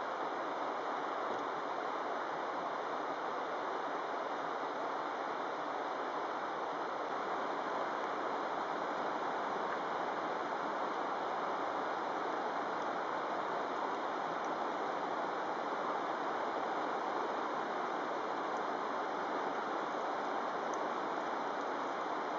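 Fast-flowing river rushing steadily over rocks and rapids.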